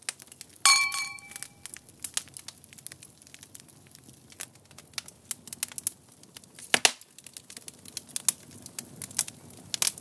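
Wood fire crackling, with many irregular snaps and pops and one loud sharp crack near the end. About a second in, a glass clinks once and rings briefly.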